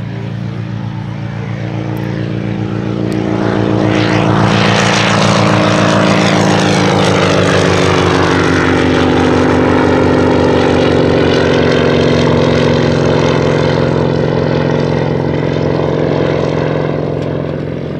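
Single-engine piston propeller aircraft at full power taking off and climbing past. The engine-and-propeller drone swells over the first few seconds, drops in pitch as the aircraft goes by, then eases slightly as it climbs away.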